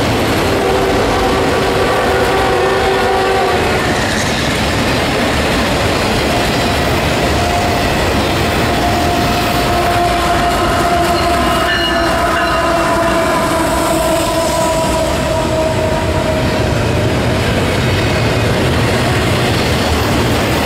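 Two freight trains passing close on adjacent tracks, wheels rumbling and clattering on the rails. Over this, the lead CSX locomotive of the oncoming double-stack train sounds its multi-note horn: a blast of about four seconds, then a longer one whose pitch sags slightly as the locomotive goes by.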